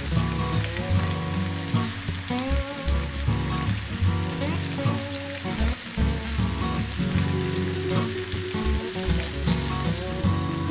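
Seasoned chicken breasts frying in hot oil in a nonstick pan, a steady sizzle, under background music with a pulsing bass.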